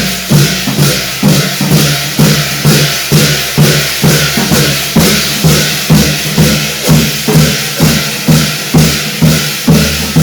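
Korean shamanic ritual (gut) percussion: drum and cymbals beating a fast, steady rhythm of about two strokes a second.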